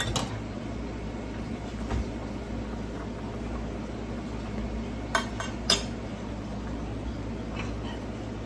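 A metal spoon clinking against pots and pans on a stove, with one clink at the start and two sharp clinks about five seconds in, over a steady low background noise.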